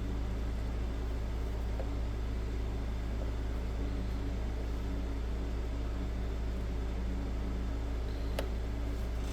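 Steady low hum with a faint hiss, even throughout; a single faint click about eight seconds in.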